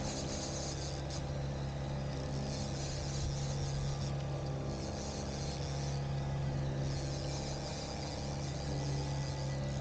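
Boat engine running steadily, a low hum, with a fishing reel being cranked in stretches: a high whirring that comes and goes every second or two while a fish is played on a bent rod.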